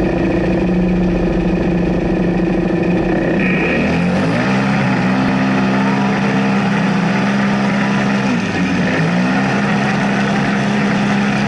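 Polaris RZR side-by-side engine heard from inside the cab, running at a steady pitch, then rising about three and a half seconds in as the car pulls away from the stage start. The revs hold level while speed builds, dip briefly about eight and a half seconds in, and climb again.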